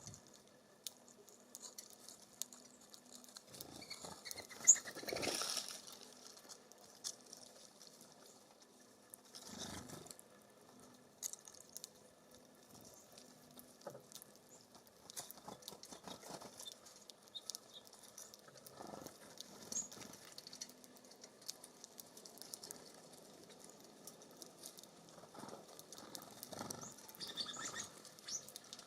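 Small birds feeding at a seed feeder: scattered light pecking ticks and rustles of seed and wings, with a louder rustling burst about five seconds in and smaller ones later.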